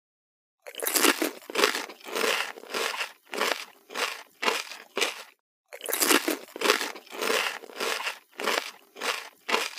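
Repeated crunching, about two crunches a second, starting under a second in and broken by a brief pause partway through.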